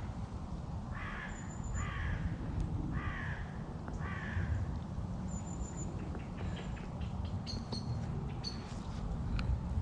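A crow cawing four times, about a second apart, followed by a few short, high chirps from smaller birds, over a steady low rumble.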